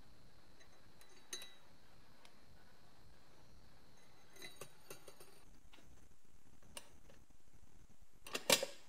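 Faint metallic clicks and taps as metal rods are fitted into the centre hole of a scale's painted metal base, ending in a short clatter of several sharper clicks, the loudest of them.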